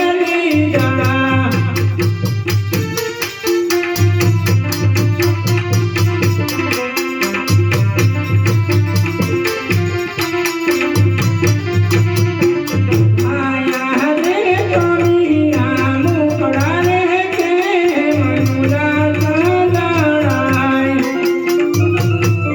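Instrumental Gujarati folk devotional music from a Ramamandal troupe. A fast, steady beat of rattling percussion strikes runs over a drum, with a wavering, gliding melody line.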